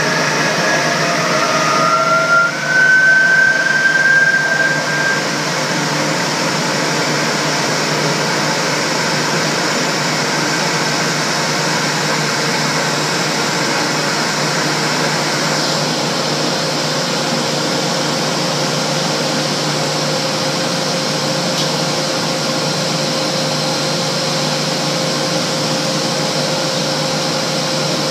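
Cleaver-Brooks FLEX boiler burner's combustion-air blower running steadily during the pre-purge at high fire, with no flame lit yet. A high whistle steps up in pitch and grows louder a couple of seconds in, then fades into the steady rush of air.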